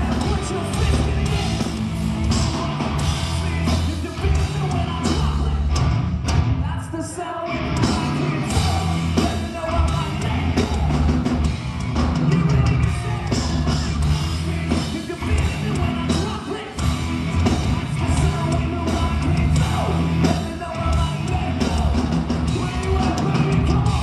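Hard rock band playing live at full volume, with drums and a lead vocal over the band. The music drops back briefly about seven seconds in.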